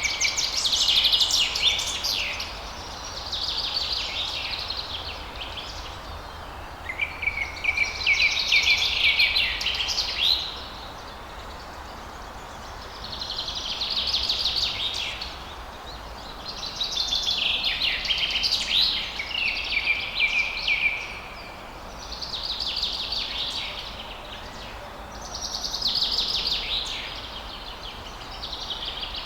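A songbird singing in repeated fast chirping phrases, each two to four seconds long and a second or two apart, over a faint steady hiss.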